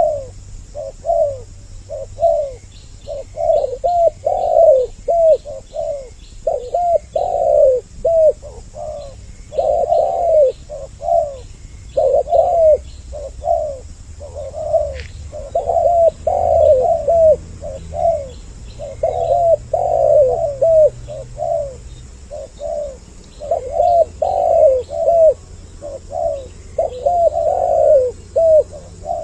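Spotted doves (tekukur) cooing over and over in quick, overlapping phrases, a doubled-voice lure call for attracting male and female doves.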